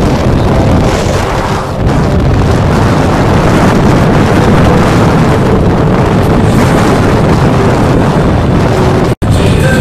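Heavy wind noise on the camera microphone of a motorcycle at road speed, with the bike's engine and road noise beneath it. Near the end the sound cuts out for an instant and music starts.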